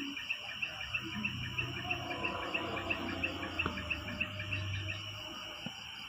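Insects chirping in a steady rhythm, about three short high chirps a second.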